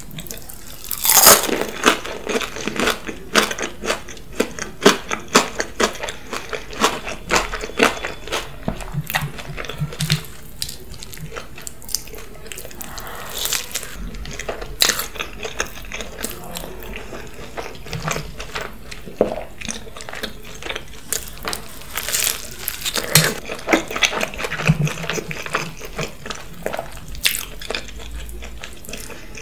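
Close-miked eating of cheese-topped waffle fry pizza: crunchy bites and chewing, heard as many irregular crisp clicks, with a few short low hums from the mouth.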